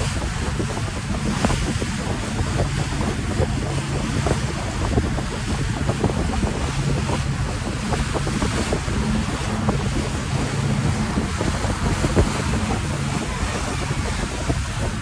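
Wind buffeting the microphone and water rushing past the hull of a moving ferry, over the steady low hum of the ferry's engine.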